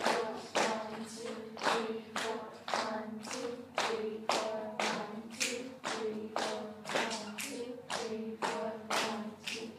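A class of students pats a steady 4/4 rhythm, about two strokes a second, while counting the beats aloud together in a rhythm-reading exercise.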